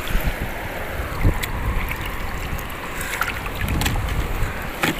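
Shallow seawater sloshing and swirling over rocks, with wind rumbling on the microphone and a few sharp clicks.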